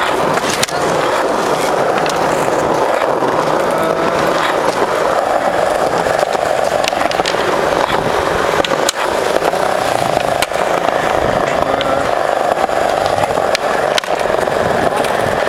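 Skateboard wheels rolling over a concrete skatepark floor: a loud, steady rolling noise with a few sharp clicks scattered through it.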